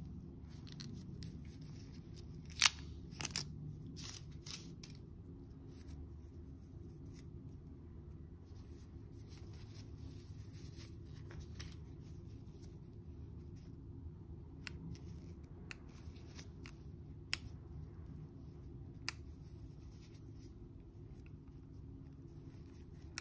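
Gloved hands handling plastic packaging and the charger cable. A few scattered sharp clicks and crinkles come over a faint steady low hum, the loudest click about two and a half seconds in.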